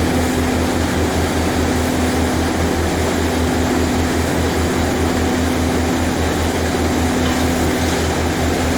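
Heavy machinery engine running steadily at a constant speed, with a low, even, rhythmic throb under a steady hum.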